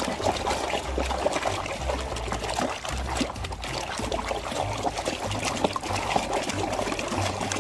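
Water running, trickling and splashing as a muddy toy cement-mixer truck is washed by hand, with many small clicks and knocks through it.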